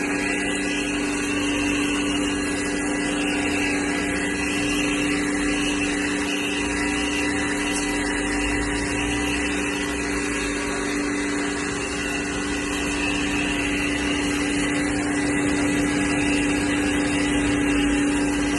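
Kawasaki HPW302 pressure washer running steadily, its motor and pump giving a constant hum with a hissing spray.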